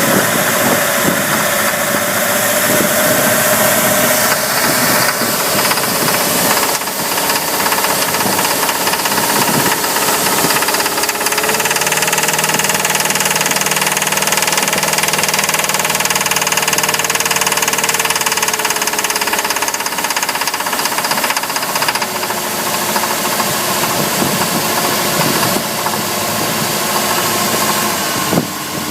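Mercruiser 5.7-litre (350) V8 boat engine running under way at about 2,000 rpm with a knock. The knock comes from water getting into two cylinders through a head gasket blown when the engine overheated. The engine's pitch shifts a little through the middle.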